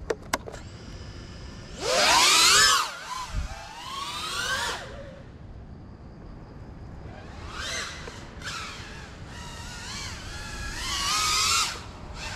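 Small FPV quadcopter's motors whining, the pitch sweeping up and down as the throttle is worked. There is a loud burst about two seconds in, then repeated throttle blips that build again near the end.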